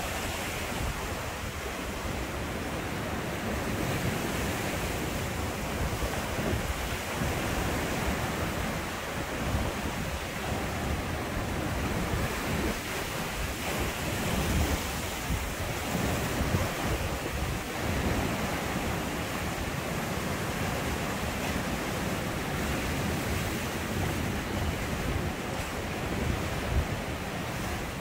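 Sea surf washing and breaking over basalt rock ledges in a steady wash, with wind gusting on the microphone.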